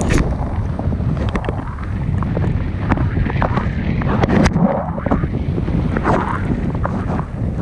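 Wind rushing over the camera's microphone in paragliding flight: a constant low rumble with irregular gusts and a few sharp clicks and rustles.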